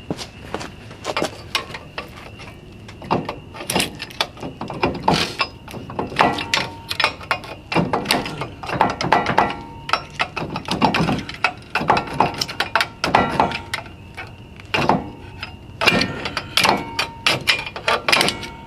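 Hand tools clicking and clanking against metal brake caliper parts in irregular clusters of sharp metallic knocks.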